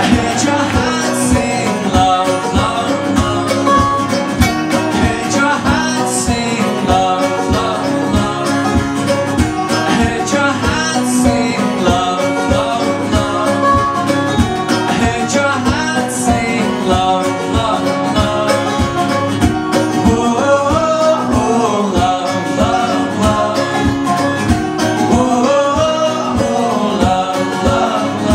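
Acoustic folk band playing live: a strummed acoustic guitar and a picked banjo keep a steady rhythm under a man singing lead.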